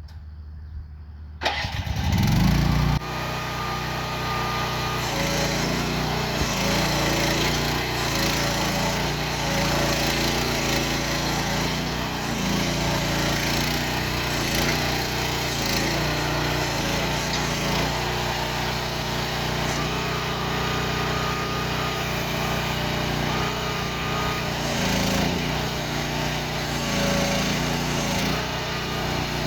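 Small gasoline engine of a 2023 MIVA VA13 mini excavator starting about a second and a half in, briefly revving up, then running steadily with its pitch wavering up and down.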